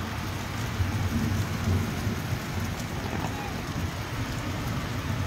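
Heavy rain falling steadily on rooftops, an even hiss with a low rumble underneath.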